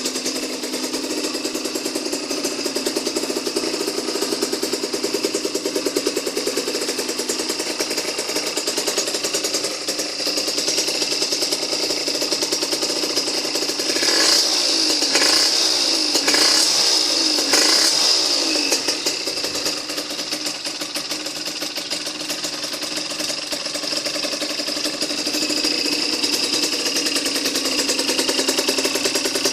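Puch Condor 3's 49cc reed-valve two-stroke engine with a Yasuni exhaust idling steadily, blipped up in a few quick revs about halfway through before dropping back to idle.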